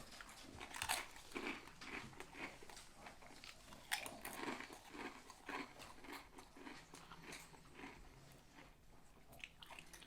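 Close-miked eating: a person chewing and biting into a sub sandwich, with irregular wet crunches, the sharpest about a second and about four seconds in.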